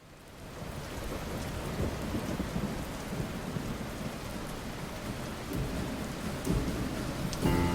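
A heavy rainstorm downpour that fades in over the first second, with deep rumbles underneath. Music comes in near the end.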